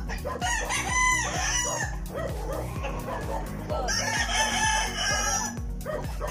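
Roosters crowing: two long crows, one beginning about half a second in and another about four seconds in.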